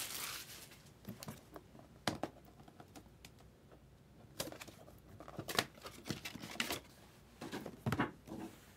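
Cardboard card boxes and paper being handled: scattered taps, clicks and short rustles, with a brief rustle at the start and clusters of clicks in the middle and near the end.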